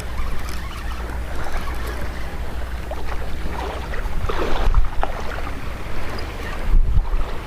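Wind buffeting the microphone over the steady wash of surf on the beach, with a few stronger gusts about halfway through and near the end.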